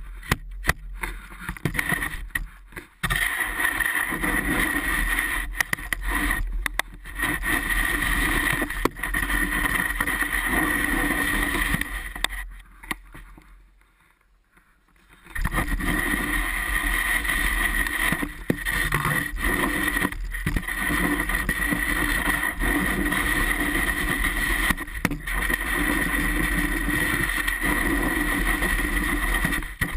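Snow shovel blade scraping and pushing snow across wooden deck boards, a steady grinding scrape with scattered knocks as the blade catches on the boards. It drops away for about two seconds around the middle, then resumes.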